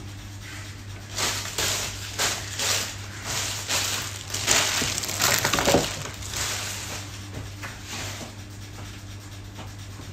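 Rustling and scraping as the food processor's parts and packaging are handled, in a run of noisy strokes that eases off in the last few seconds, over a low steady hum.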